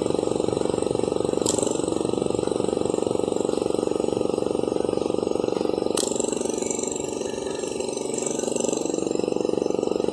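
Laboratory vacuum pump running with a steady hum. Its tone shifts briefly about one and a half seconds in and again from about six to nine seconds in, as the suction is checked by closing the pipe with a finger. Two sharp clicks, about one and a half and six seconds in.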